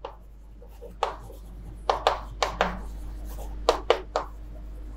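Chalk writing on a chalkboard: a string of short, sharp taps and scratches as each stroke of the letters is made, coming irregularly with brief pauses between them.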